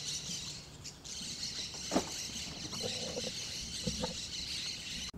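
Steady high-pitched insect chorus outdoors among trees, with a few short bird chirps about two seconds in and again a little before four seconds in.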